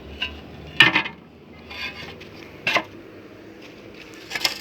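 A handful of sharp metallic clanks and knocks at irregular intervals, the loudest about a second in.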